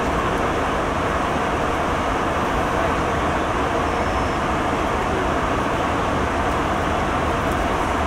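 Steady airliner cabin noise in cruise flight: an even rush of airflow and engine noise heard from inside the cabin, with no changes.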